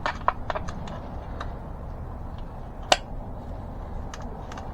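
Sharp metallic clicks and taps of bicycle spokes knocking against the rim and hub as they are worked loose: a quick run of clicks at the start, one loud click about three seconds in, and a few fainter ticks after.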